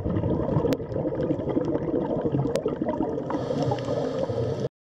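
Sea turtle grunting: a low, rough, gurgling sound that runs without a break and stops suddenly near the end, with two sharp clicks about two seconds apart.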